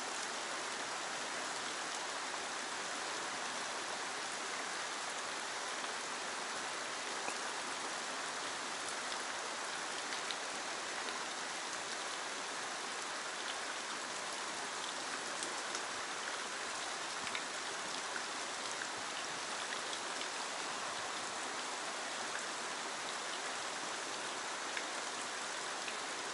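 Shallow stream current running over rock: a steady, even rush of water with faint small ticks.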